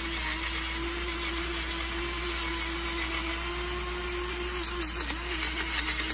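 Battery-operated electric pepper grinder running, its small motor whirring at a steady pitch as it grinds pepper. About five seconds in the pitch dips briefly, with a few light clicks.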